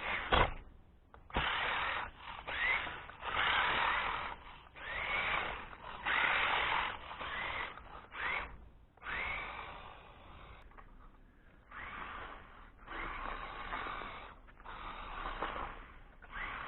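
Electric motor and gear drive of an RC 4x4 rock crawler whining in repeated throttle bursts, the pitch rising as each burst spins up, with short pauses between. Two sharp clicks near the start.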